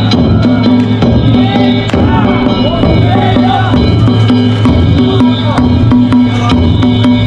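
Danjiri bayashi festival music: taiko drums struck continuously under steady ringing gong tones, with voices calling over it.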